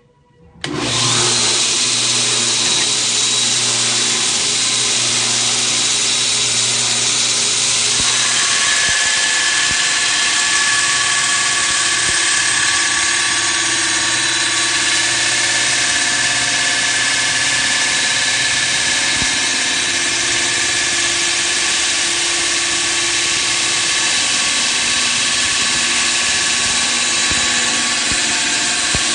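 Belt grinder with a ceramic abrasive belt switched on under a second in and running steadily, grinding the edge of a steel plate a little over a quarter inch thick.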